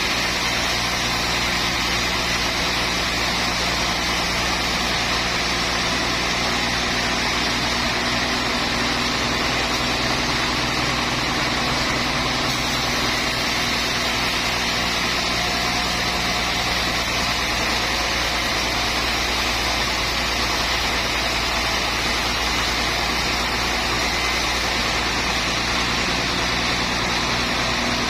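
Sawmill machinery running steadily: a constant mechanical drone holding several steady tones, with no change in level.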